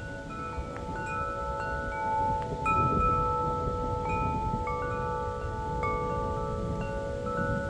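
Wind chimes stirred by the wind, many tones struck one after another at uneven moments and ringing on, overlapping, over a low steady noise of the storm.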